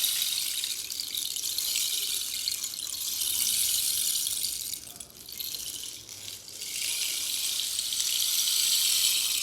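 Bamboo rain stick being tilted, its fill trickling down inside with a patter like falling rain, in long swells that fade twice in the middle and rise again.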